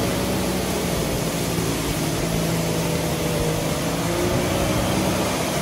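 Jeep Cherokee XJ's engine running hard at fairly steady revs as the Jeep ploughs through a deep mud hole, its tyres churning and throwing muddy water.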